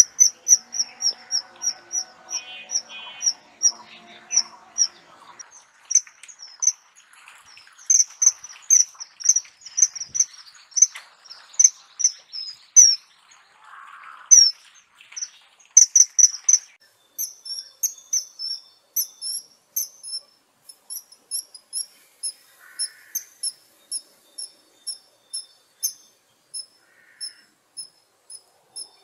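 A kingfisher calling: a long series of short, shrill, high-pitched piping notes, repeated about two to three times a second. Fainter background chatter and noise are under the calls for the first few seconds.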